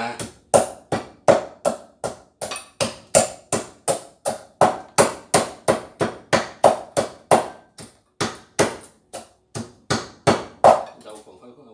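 Wooden pestle pounding garlic in a mortar: a steady run of sharp knocks, about three a second, that stops shortly before the end.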